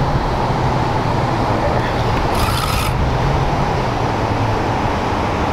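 Steady wind buffeting the microphone over the rush of beach surf, with a short rasp of about half a second a little before the middle.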